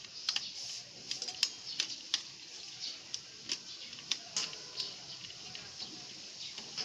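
Irregular sharp clicks and taps of plastic and metal computer parts being handled as a fan is fitted onto a desktop computer's motherboard.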